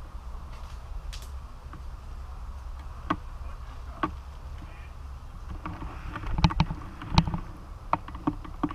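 Low rumble of wind and movement on the microphone with scattered sharp clicks and knocks. The clicks come thickest and loudest about six and a half to seven seconds in, with a few more near the end.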